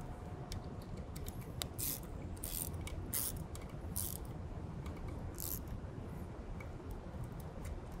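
Faint scattered clicks and short scraping rustles of hands working on the bicycle's front wheel hub.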